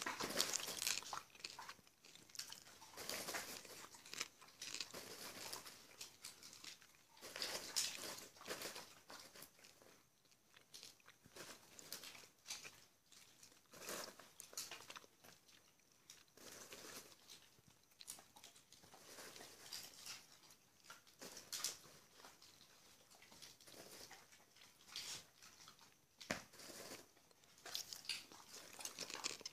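Popcorn being crunched and chewed, in irregular bursts.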